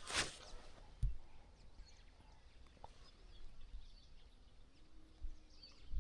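Faint bird chirps over quiet rural ambience. There is a brief burst of noise right at the start and a soft low thump about a second in.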